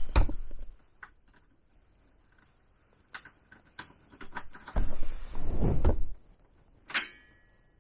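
Handling noises: scattered clicks and knocks, a rustling scrape between about five and six seconds in, and a sharp metallic clink with a brief ring near the end. No engine is running yet.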